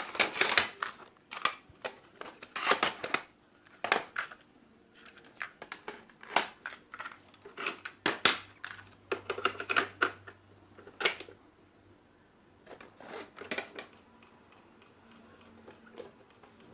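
Irregular clicks and scratchy crackles from an old National Panasonic radio being handled and worked at its controls.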